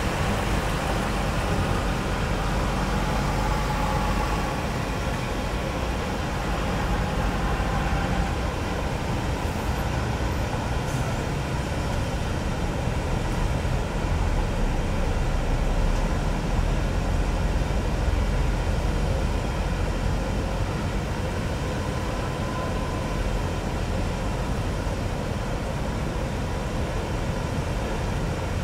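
Steady jet engine noise of a widebody airliner taxiing on the airport apron: a continuous low rumble with a faint whine over it.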